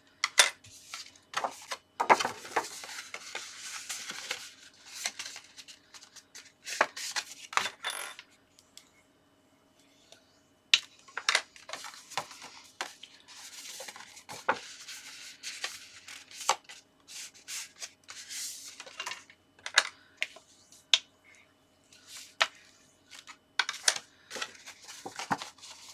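A square of white card stock being folded along its score lines and creased flat by hand: paper rustling and crinkling with many sharp clicks, pausing for a couple of seconds about a third of the way in.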